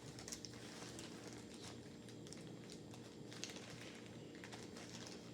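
Faint, scattered scrapes and ticks of a tablespoon scooping baking powder, over a low steady room hum.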